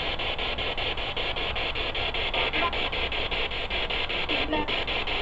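Spirit box sweeping through radio stations: a steady hiss of static chopped into a fast, even pulse, with a couple of brief snatches of broadcast sound about halfway through and near the end.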